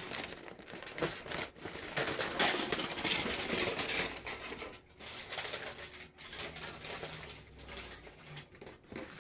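Aluminium foil crinkling and rustling as it is handled, in irregular crackly bursts that grow quieter in the second half.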